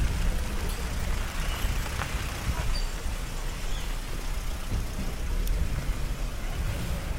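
A vehicle driving slowly on a dirt track: a steady low engine and tyre rumble.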